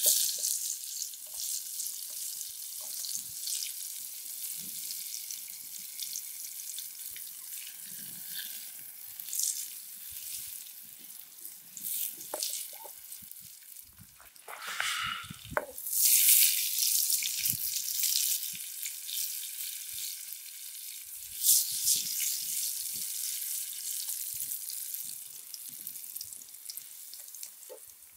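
Oil and chopped herbs sizzling in a metal frying pan over a wood campfire, with sharp crackles from the fire. The sizzle surges louder a couple of times, most strongly about halfway through.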